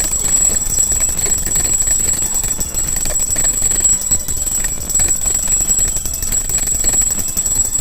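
Puja hand bell rung rapidly and continuously: a loud, steady high ringing that runs without a break.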